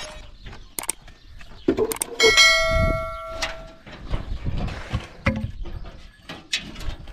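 A single bell-like metallic ring about two seconds in, dying away over about a second, among scattered light knocks and scuffs.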